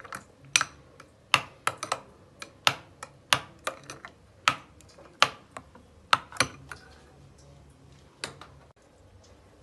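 Steel spoon clinking and tapping against a glass bowl while stirring curd into a thick chutney: irregular sharp clicks, about one or two a second, thinning out near the end.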